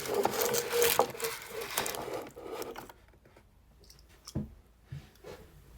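Plastic toy figure being handled: scraping and rustling for about three seconds, then a few light knocks.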